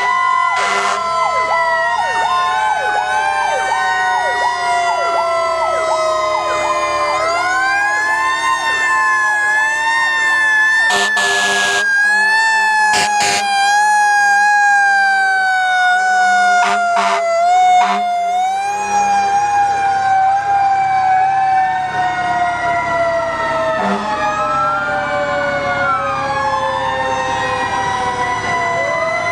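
Several fire truck sirens sounding at once, overlapping. One long tone slowly falls in pitch while other sirens sweep up and down. A few short loud blasts cut in about 11, 13 and 17 seconds in.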